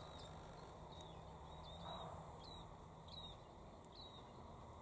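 Faint bird chirping: a short high call repeated about every three quarters of a second, over a low steady hum, with a brief soft noise about two seconds in.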